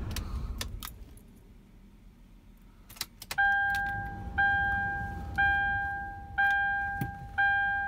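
Hyundai Grand Starex 2.5 diesel (D4CB) shut off, its running dying away about a second in. A few clicks of the ignition key follow. Then the van's dashboard warning chime beeps about once a second.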